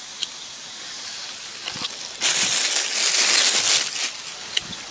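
Leafy ground plants being pulled and torn up by hand: a rustling, crackling burst lasting about two seconds in the middle, with scattered small snaps.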